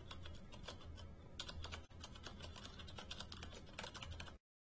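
Fast, continuous typing on a Das Keyboard Professional Quiet mechanical keyboard, with many irregular key clicks. There is a brief break about two seconds in, and the typing stops sharply near the end.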